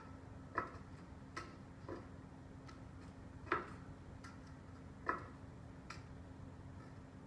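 A series of light clicks, about one a second, over a steady low hum; the clicks stop about six seconds in.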